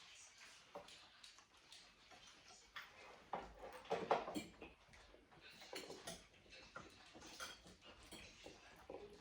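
Quiet eating sounds: cutlery clicking and tapping against plates at irregular intervals, a little louder about four seconds in.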